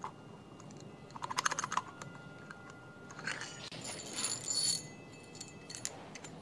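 Small metal screws and pins clicking and clinking against a metal propeller flange as they are handled and fitted by hand. There are two clusters of light clicks, about a second in and again around three to five seconds in, with short high metallic rings among them.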